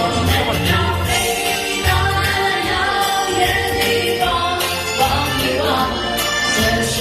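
A Chinese pop song performed live, with voices singing over a band or backing track and a steady bass line.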